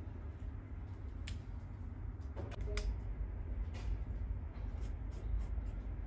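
Steady low room rumble with a few faint clicks and taps as a marker and tablet are handled on a wooden desk.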